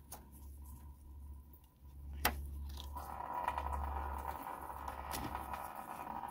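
Radiator drain on a Honda CR-V being opened by hand, with a sharp click a little after two seconds in. From about three seconds in, coolant starts to run out steadily, splashing into a drain pan below.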